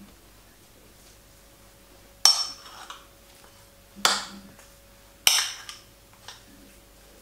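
A metal spoon clinks sharply against a small bowl three times, each strike ringing briefly, while bakso meatball paste is scooped and shaped.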